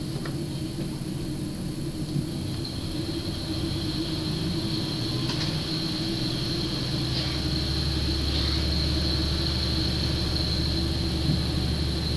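Inside a KiHa 40 diesel railcar moving slowly along a station platform: a steady engine and running-gear drone with a thin high whine, the low drone growing louder about halfway through.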